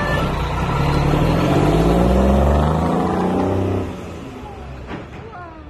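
Lorry tractor unit's diesel engine accelerating as it pulls away, its pitch rising, then dropping off and fading just before four seconds in as the lorry moves off down the street.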